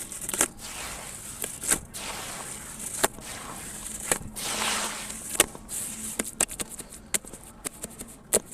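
Sand-cement chunks crumbling in water: irregular sharp crackles and pops, with a longer fizzing crumble about four seconds in and the crackles coming thick and fast near the end.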